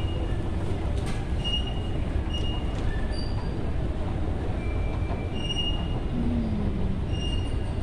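Steady low rumble of a large bus station hall, with short high-pitched squeals scattered through it.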